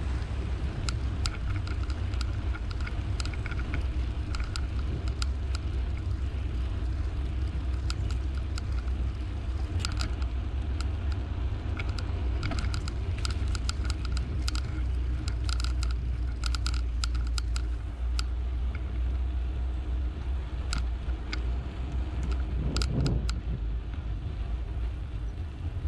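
Riding a bicycle: wind buffeting the microphone makes a steady low rumble, and the bike gives off irregular rattling clicks.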